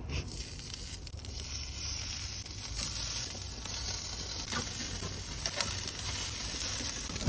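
Marinated chicken pieces sizzling on the grate of a charcoal grill: a steady hiss, with a few light clicks of metal tongs.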